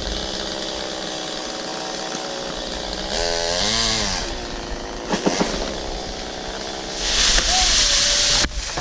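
Chainsaw running steadily, revved up and back down once about three seconds in, then held at high throttle near the end.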